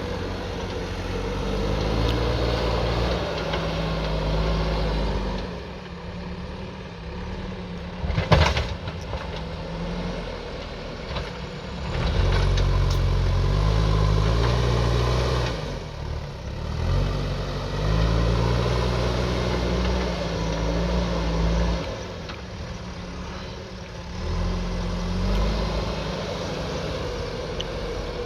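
Diesel engine of a JCB backhoe loader working, its pitch rising and falling again and again as it takes and sheds load. A single sharp knock about eight seconds in is the loudest sound.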